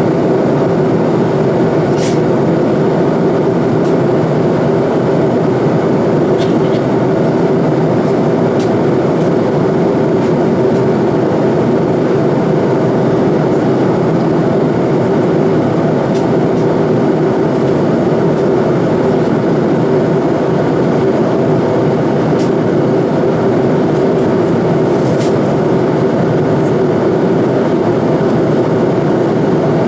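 Steady cabin roar of an Airbus A330-200 in cruise, with its Rolls-Royce Trent 772B engines and the airflow over the fuselage, heard inside the passenger cabin from a window seat behind the wing.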